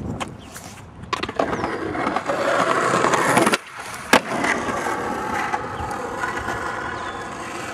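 Skateboard wheels rolling on asphalt, getting louder as the board passes close, with a sharp clack about four seconds in, then rolling on more quietly as it moves away.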